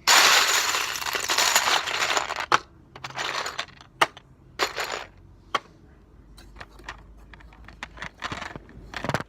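Small plastic LEGO pieces rattling loudly in a dense clatter for about two and a half seconds, then scattered clicks and shorter rattles as pieces are shifted around.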